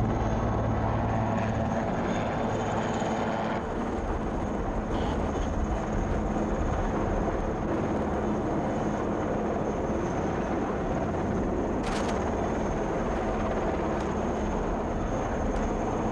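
Steady, continuous drone of an aircraft overhead during a parachute drop.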